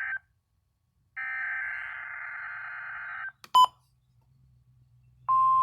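NOAA Weather Radio SAME/EAS header: the end of one raspy, warbling digital data burst, then after a second's gap another burst about two seconds long. A short loud click follows, and near the end the steady 1050 Hz weather radio warning alarm tone comes on for the weekly test.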